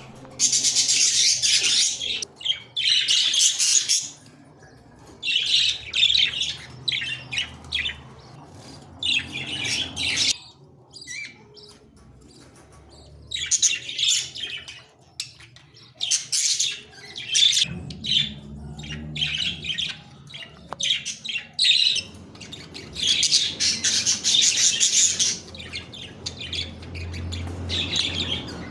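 Small cage birds chirping and singing in repeated high-pitched bursts of one to three seconds, with short quieter gaps between.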